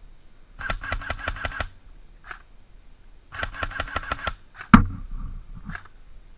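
Two rapid bursts of full-auto airsoft gunfire, each about a second long, the clicks coming about ten a second, with a second or so between them. A single loud sharp crack follows shortly after the second burst.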